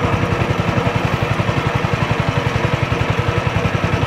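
Small boat engine running at a slow, steady idle, with a rapid, even pulse.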